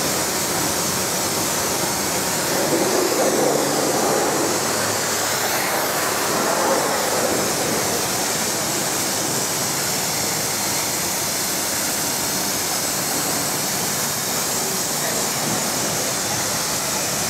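Pressure washer spraying a jet of water onto a car's bodywork, a steady hiss.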